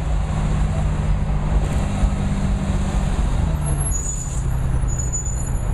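A motor vehicle's engine running in street traffic: a steady low hum whose pitch shifts about three seconds in, with faint high squeals in the second half.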